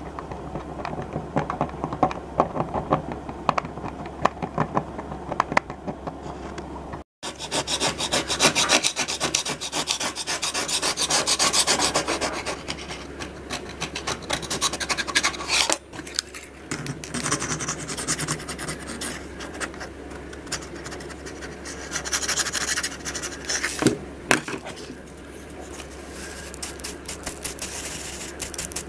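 A hand tool scraping and rasping in quick strokes, digging the crumbly chipboard core out of a damaged spot in a laminate kitchen countertop to clear the hole for filling. The sound cuts out briefly about seven seconds in.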